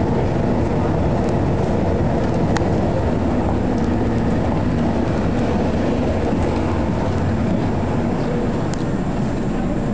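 Steady rumble of a Vienna U-Bahn U1 underground train, with a faint click or two.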